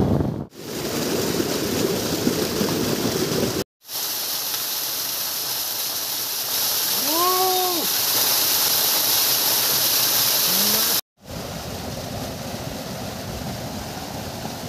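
Small waterfall pouring onto rocks and a shallow pool: a steady rush of splashing water, cut off by short silent breaks, then the lower rush of a hillside stream near the end. About halfway through, a brief pitched call rises and falls over the water.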